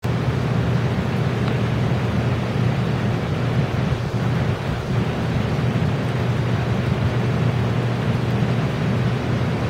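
A steady, unchanging low hum under an even hiss, a constant background rumble with no distinct sounds standing out.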